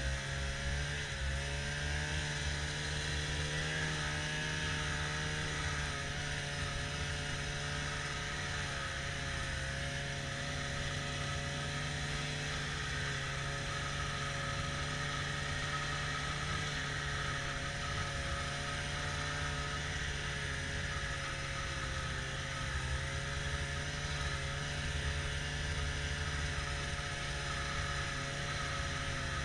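Snowmobile engine running at a steady cruising speed, heard from on board the machine, holding one even pitch throughout with a steady hiss above it.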